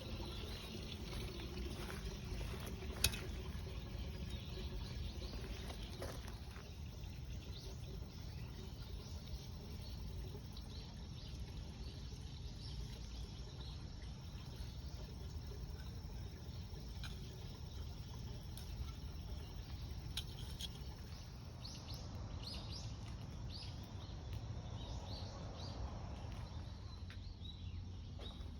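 Outdoor field ambience: a steady low rumble with scattered short, high chirps of small wildlife, and one sharp click about three seconds in.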